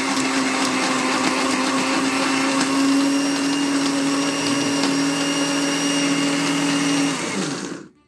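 A 400 W Power Black blender's motor running steadily as it grinds dry eggshells, vegetable peels and coffee grounds. About seven seconds in it is switched off, and the motor winds down with a falling pitch and stops.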